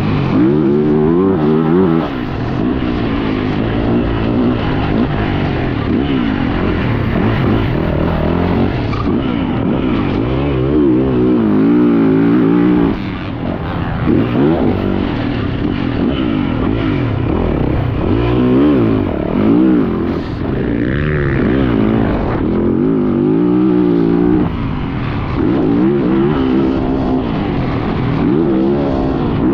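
Yamaha YZ450F four-stroke motocross bike being ridden hard, its engine pitch climbing and dropping over and over as the throttle is opened and closed through the gears.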